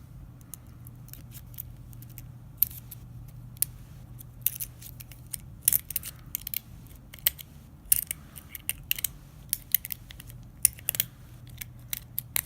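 A steel lock pick scraping and clicking in the keyway of a Master Lock 140 padlock, with irregular sharp metallic ticks and small rattles, as a pointed shank pick is worked to bypass the latch. It does not open the lock.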